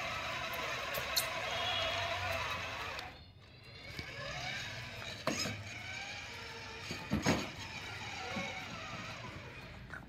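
Battery-powered ride-on toy Jeep's electric drive motors and plastic gearboxes whirring while the car is stuck, its tyre slipping. The whir drops away about three seconds in and comes back, with a few sharp knocks along the way.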